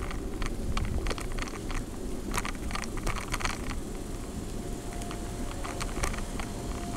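Bicycle ridden along a concrete sidewalk: a steady low rumble of wind on the microphone and rolling, with many irregular clicks and rattles. A faint steady whine comes in about two-thirds of the way through.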